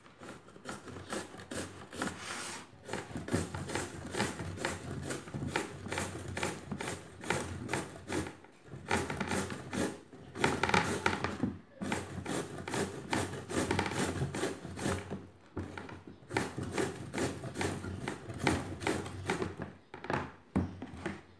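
Raw green gourd being grated on a handheld metal grater, with repeated rasping strokes a few a second and brief pauses between runs.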